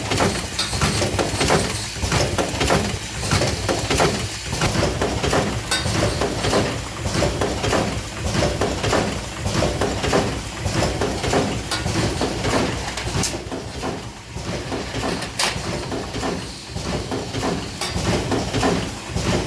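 Spout pouch welding and spout inserting machine running, a steady mechanical clatter with many sharp clicks and knocks from its working strokes.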